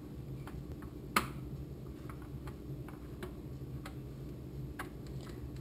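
Faint, irregular clicks and light taps of a metal spoon spreading pistachio paste over a tortilla on a baking tray, with one sharper click about a second in.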